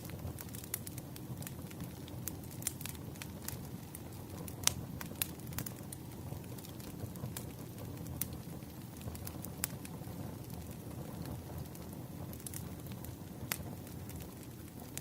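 Wood campfire burning: a steady low rush of flame with frequent sharp crackles and pops from the burning logs, one louder pop about a third of the way in.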